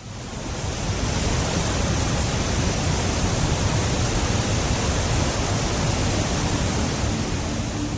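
Rushing river water, a steady dense roar of flowing water that fades in over the first second and then holds even.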